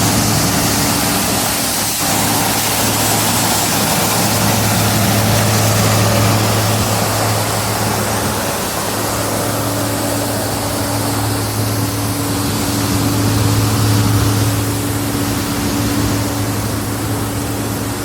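Grain-handling machinery running steadily at a grain bin as corn is unloaded and augered into the bins: a constant low engine-and-auger hum under a continuous rushing hiss.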